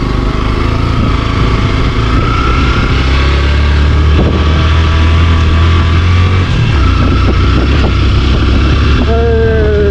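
Motorcycle engine running under way on a rough gravel road. Its low, steady note changes about six and a half seconds in, as the throttle or gear changes.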